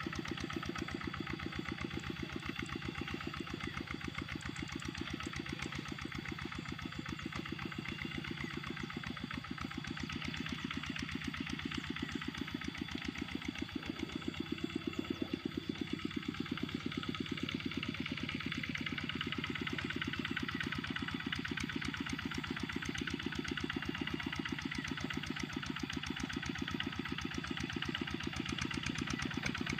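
Kubota RD65 single-cylinder diesel engine of a hand tractor running steadily, its firing pulses coming in a fast, even beat.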